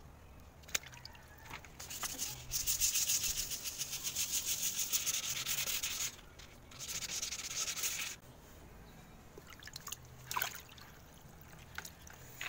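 A sanding sponge rubbed by hand over primer on a car's steel body panel, in quick back-and-forth strokes. It is smoothing the primer coat before the finish paint. There are two bouts of sanding, from about two to six seconds in and again around seven to eight seconds.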